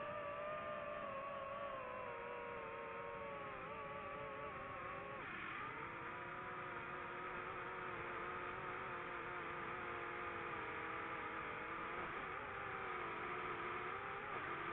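Quadcopter drone's motors and propellers whining steadily, several tones at once that waver slightly. The tones shift lower about five seconds in.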